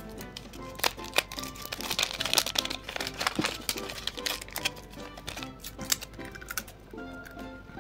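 Paper crinkling and rustling in quick, irregular clicks and taps as a handmade paper blind bag is folded and closed, over background music.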